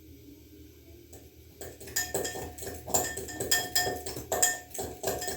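Dishes and metal cutlery clinking in quick succession, each strike ringing briefly at the same few pitches, starting about a second and a half in.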